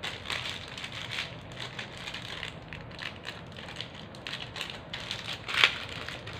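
Thin clear plastic bag crinkling in the hands, a run of irregular crackly rustles, as a bag of small plastic ludo pawns is handled; one sharper crackle about five and a half seconds in.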